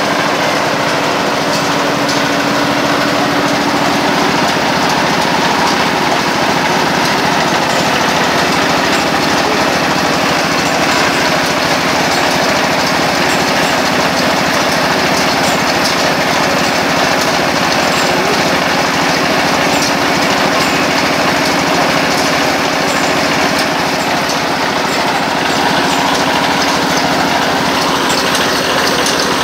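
A machine running loudly and steadily without a break, with an even hum and mechanical noise that does not change in speed.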